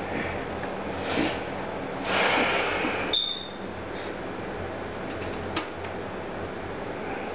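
Computer parts being handled and slid into place: a scraping slide, a brief high metallic ping just after it, and a single sharp click later on, over a steady hiss.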